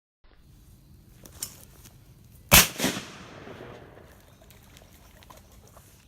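Tristar over/under 12-gauge shotgun firing one shot about two and a half seconds in, with a long echoing tail. A second, quieter crack follows a fraction of a second after the shot, and a faint sharp click comes about a second before it.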